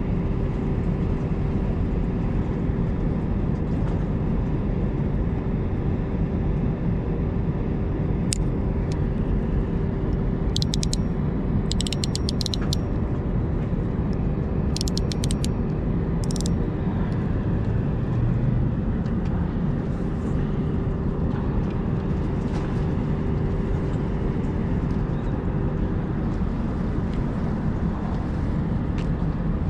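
Steady low rumble of harbour background noise with a constant hum that fades out near the end, and a few quick runs of sharp high clicks in the middle.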